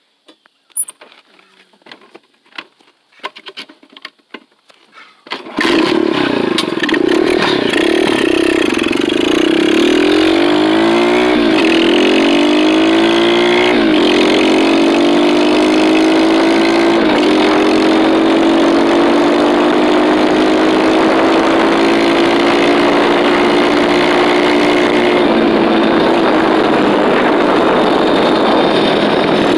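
Dirt bike engine running under way: after a few seconds of scattered clicks and handling noise it comes in abruptly and loud, its pitch rises and drops back four times as the rider shifts up through the gears, then it holds a steady cruise.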